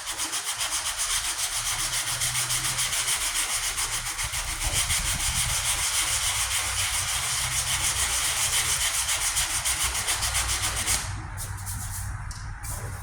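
Sandpaper, a worn piece of 120 grit, rubbed back and forth in quick, even strokes over the primed and filled patch on a steel truck tailgate. The sanding stops about eleven seconds in, leaving a few lighter scrapes, with wind rumbling on the microphone throughout.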